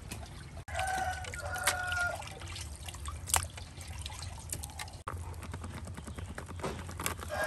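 A rooster crowing once, about a second in: one drawn-out call held at a steady pitch. Around it are light clicks and knocks over a low steady hum.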